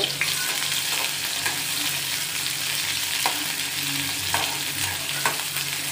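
Sliced onion and green chilli sizzling in hot oil in a metal kadai while being stirred with a steel ladle, which scrapes and knocks against the pan a few times in the second half.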